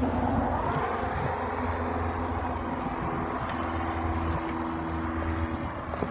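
A motor vehicle's engine running steadily, with a low, even hum.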